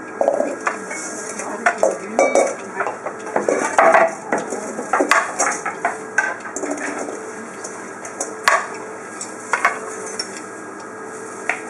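Kitchen clatter as several people peel vegetables: knives and peelers knocking on wooden cutting boards and utensils clinking against metal bowls, in irregular sharp taps with a few louder knocks.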